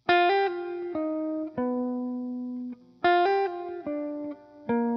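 Background music: a plucked guitar playing single notes that each ring and fade, in a short phrase that starts over about three seconds in.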